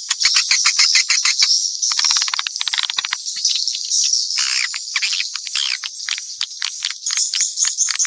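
Edible-nest swiftlets twittering in a dense, rapid chatter of clicks and trills, several calls layered over one another: a mixed swiftlet calling-sound track of the kind played to lure swiftlets into a nest house.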